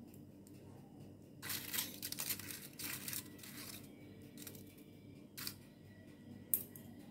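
Aluminium foil crinkling as metal tongs set a lit piece of charcoal in a foil cup on top of the dish, in a few rustling bursts, then a couple of short light clicks near the end.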